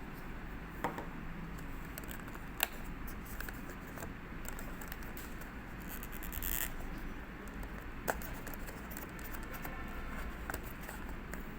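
Packaging and small plastic parts being handled: a few sharp clicks, about four spread through, and a short scrape about two-thirds of the way in, over a steady background hum.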